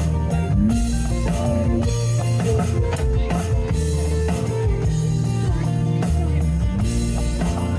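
Live blues-rock band playing an instrumental passage: electric guitar holding and bending sustained notes over a drum kit and bass.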